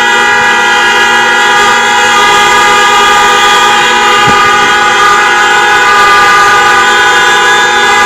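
A loud horn held continuously: a steady chord of several tones with no breaks or changes in pitch.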